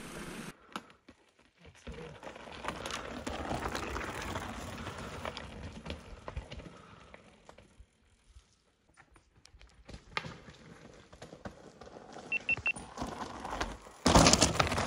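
Mountain bike on a rough gravel and rock trail: tyres crunching over stones, with knocks and rattles from the bike, rising and falling in level. About fourteen seconds in, a rider passes close by with a sudden loud rush of tyres on gravel.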